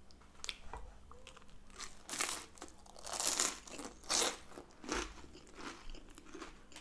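Close-miked eating: crunchy bites and chewing, in a series of short bursts roughly a second apart.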